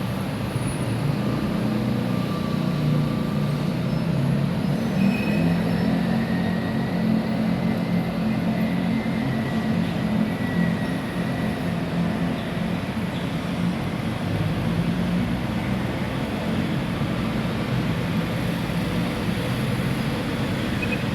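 Electric metro train running, a steady rumble and low hum with a faint high whine that drifts in pitch through the middle.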